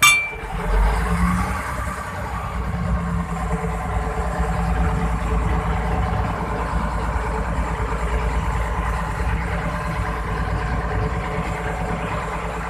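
Fishing boat's engine running steadily with a low rumble, heard on board in a rough sea. There is a sharp clink right at the start.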